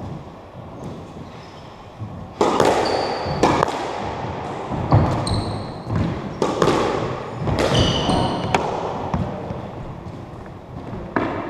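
Squash rally: the ball cracking off rackets and the front wall about once a second from about two seconds in, each hit echoing in the court, with short high shoe squeaks on the wooden floor between hits.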